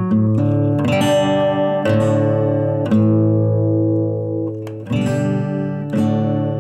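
Intro music on strummed guitar: chords struck about once a second and left ringing, with one longer held chord in the middle.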